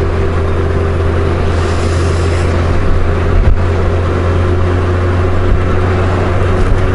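Honda Gold Wing GL1500 motorcycle cruising steadily, its flat-six engine giving a constant low hum under an even rush of wind and road noise.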